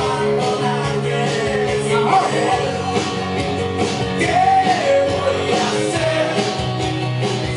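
Band music: a steady bass line under a wavering lead melody, with no clear sung words.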